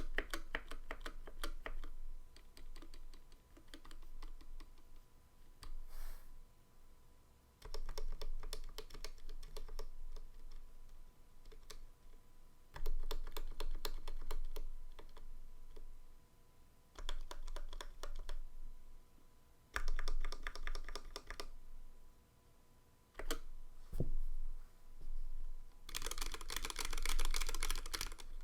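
Typing on a YMDK Melody96 mechanical keyboard with C3 Equalz Tangerine linear switches and PBT keycaps. The keystrokes come in bursts of rapid clacks separated by short pauses, and a fast, dense run near the end is the loudest.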